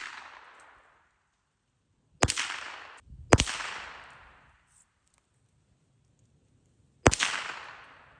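Three shots from a semi-automatic .22 Long Rifle rimfire rifle on an AR-15 platform. The first two are about a second apart and the third comes some four seconds later, each one echoing away over about a second.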